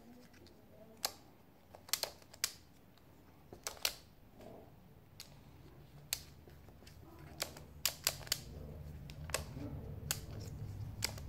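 Plastic clicks and clacks of a Skewb twisty puzzle being turned by hand, coming irregularly, sometimes two or three in quick succession. A low steady hum comes in during the last few seconds.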